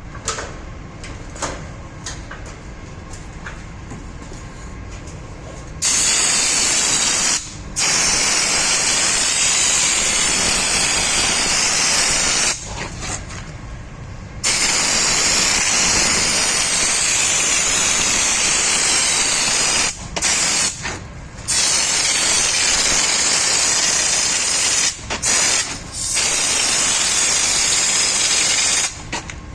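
Anti-gravel (stone-chip) coating sprayed onto a car's sills. After about six quieter seconds with a few clicks, the spray hisses loudly in five bursts of several seconds each, with short pauses between them.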